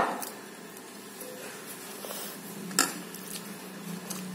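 Two sharp clinks of a plate on a table, one right at the start and one near three seconds in, as food is picked from it by hand, over a low steady hum.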